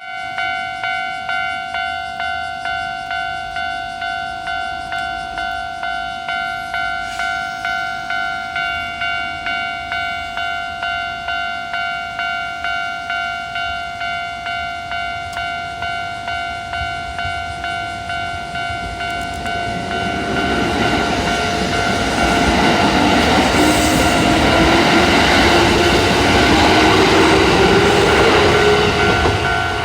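Railway level-crossing alarm ringing, a steady pitched tone pulsing about twice a second. About two-thirds of the way in, a Kintetsu 1020 series electric train pulls away and grows louder, its traction motors whining up in pitch as it accelerates over the noise of wheels on rails, with the crossing bell still going.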